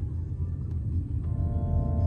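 Background music: a plucked-string intro starts about a second in, over a steady low rumble.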